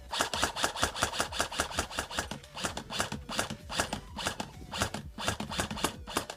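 Airsoft gun firing a long, rapid string of shots, about five sharp cracks a second.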